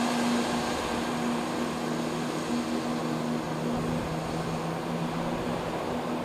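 Class 170 Turbostar diesel multiple unit running under power as it pulls away: a steady diesel drone with low humming tones, easing slightly toward the end.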